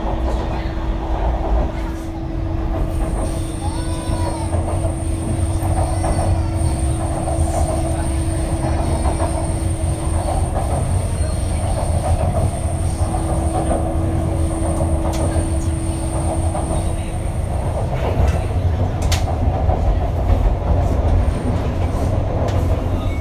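Metro train, an Alstom-built Nanjing Metro Line 2 train, heard from inside the car while running at speed. There is a steady low rumble of wheels on rail, a constant hum and a thin high whine that stops a few seconds before the end.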